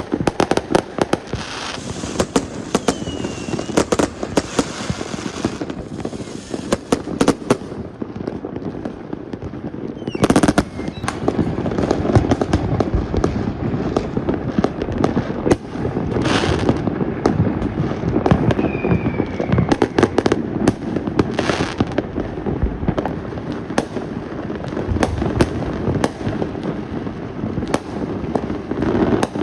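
Many fireworks going off without pause: a dense crackle of bangs and pops, with louder bursts about ten and sixteen seconds in and a few brief falling whistles.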